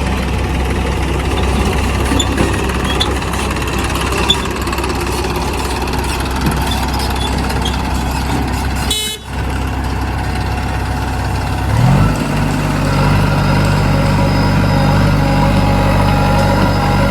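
Diesel engines of a backhoe loader and a tractor running steadily under work. About twelve seconds in, an engine rises in pitch and settles into a louder, steadier note, as when it is revved up.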